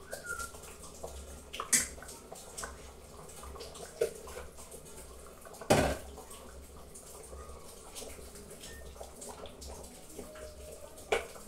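Soup being stirred in a metal pot, the liquid sloshing, with four sharp clinks of a spoon or ladle against the pot, the loudest about halfway through.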